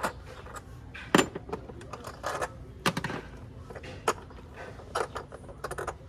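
Irregular metallic clicks and clanks of parts and hand tools being handled in the engine bay of a carburetted Nissan GA13, as the carburettor is opened up to check for fuel; the loudest knocks come about a second in and around three seconds in.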